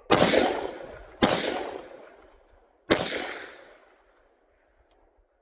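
Three rifle shots from an AR-15, a second or more apart, each loud crack trailing off in a long echo.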